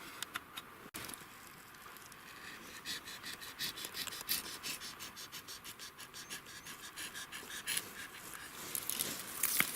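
Dry poplar bark and thin dry twigs being picked off and snapped by hand: a run of quick, irregular light crackles and scratches, thickest in the middle and again near the end.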